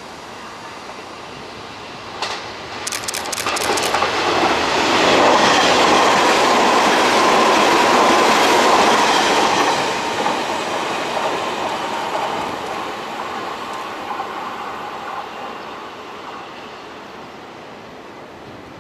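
Hanshin 8000 series electric train passing at speed. Its wheels click over rail joints as it arrives, its running noise peaks for a few seconds, then fades steadily as it moves away.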